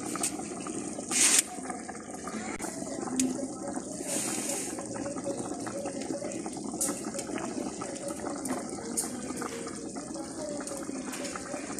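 Chicken korma bubbling steadily at a boil in an uncovered aluminium pot over a wood fire, with a brief louder hiss about a second in and another around four seconds in.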